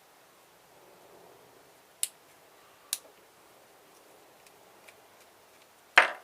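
Small hard parts and tools clicking against each other and the work table while a car stereo is being taken apart: two sharp clicks about two and three seconds in, then a much louder clack near the end.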